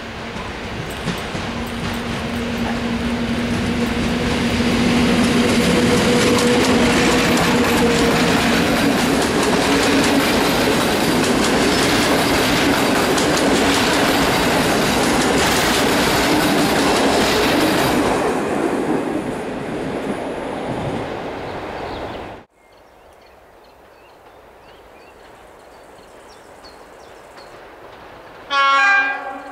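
Electric locomotive hauling Intercity passenger coaches passes close by: it grows louder with a steady hum, then the coaches' wheels clickety-clack over the rail joints before the train fades away. After that, birds chirp faintly and a distant locomotive sounds one short, loud horn blast near the end.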